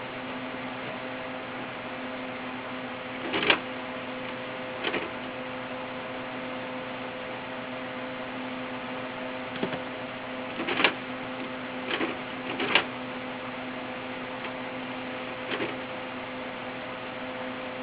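Steady electrical hum with hiss, broken by about seven short knocks and clicks spread irregularly through it, the loudest near the middle.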